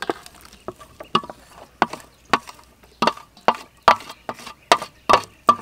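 Wooden spoon knocking and scraping against a stainless steel bowl as shredded jackfruit is pushed out of it: a series of sharp taps, each with a short metallic ring, coming quicker and more evenly, about two to three a second, in the second half.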